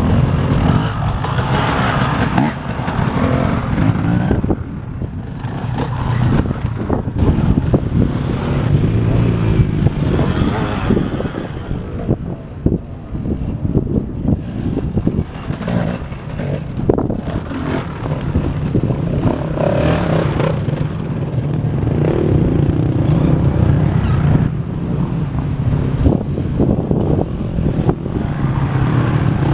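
Several enduro dirt bikes riding over a dirt hump one after another, their engines revving up and dropping off as the riders open and close the throttle, loudness rising and falling as each bike passes.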